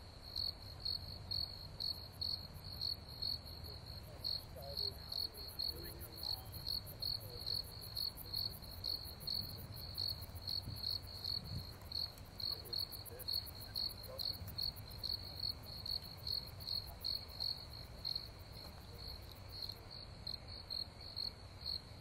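Crickets chirping in a steady, even rhythm, two to three high-pitched chirps a second, with a fainter, faster insect trill higher up through the middle.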